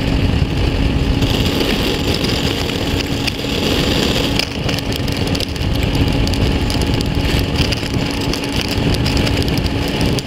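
Bass boat's outboard motor running at speed, a steady hum under loud rushing wind and water noise.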